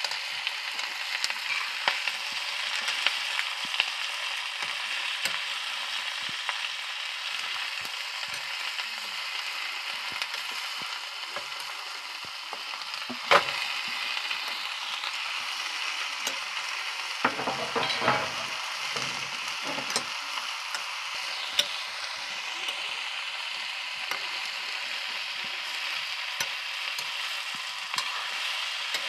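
Onions and sliced banana flower frying in oil in a steel kadai, a steady sizzle, stirred with a metal ladle that clinks and scrapes against the pan. There is one sharp clank a little before halfway, and a few duller knocks a few seconds later.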